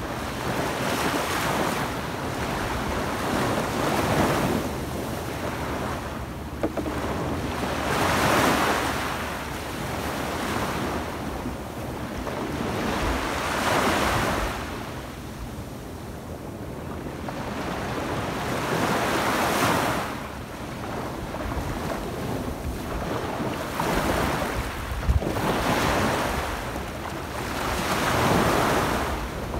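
Small waves breaking and washing up a sandy beach, the surf swelling and fading every four to six seconds. A low rumble of wind on the microphone runs underneath.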